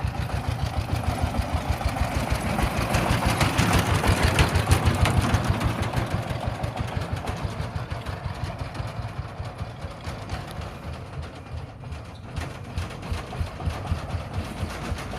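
Three-wheeled tractor's engine chugging with a fast, even putt-putt beat. It grows louder to about five seconds in, then fades somewhat.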